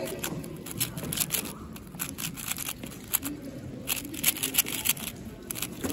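4x4 speedcube being turned fast by hand: quick, irregular clicking and clacking of its plastic layers.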